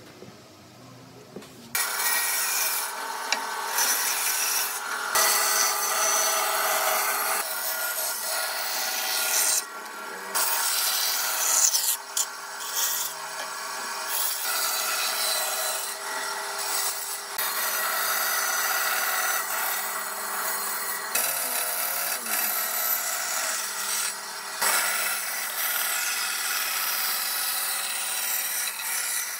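Band saw running and cutting a curved line through a pine board: a steady motor hum under the rasp of the blade in the wood. It starts about two seconds in and breaks off and resumes abruptly several times.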